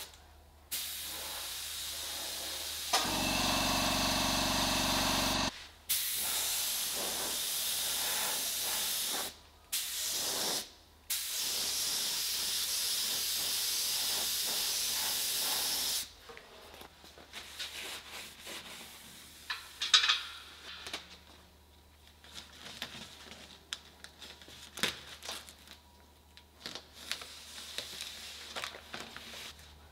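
Compressed-air paint spray gun hissing in several long bursts with short breaks between trigger pulls, with a low hum under the hiss for a couple of seconds near the start. In the second half, plastic masking sheet crinkles and rustles with small clicks and one sharp crackle.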